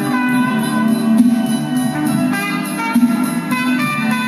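Music from a vinyl LP playing at 33 1/3 rpm on a Fisher C-20 turntable (built by BSR), heard through the stereo's speaker and recorded by the camera's microphone.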